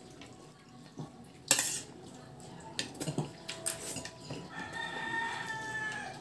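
Light clinks of cutlery on plates, with a sharper noise about a second and a half in. Near the end a rooster crows once, faintly, for about a second and a half.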